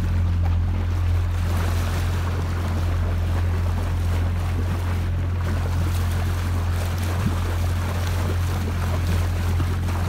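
Small motorboat's engine running steadily with a low, even hum, while water rushes along the hull as the boat moves.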